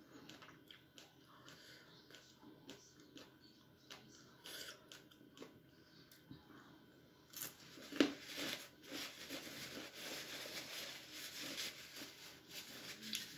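Faint biting and chewing on raw vegetables, with small crunchy clicks. About seven seconds in comes a sharp snap, then a longer stretch of louder rustling as a paper tissue is handled and held to the face.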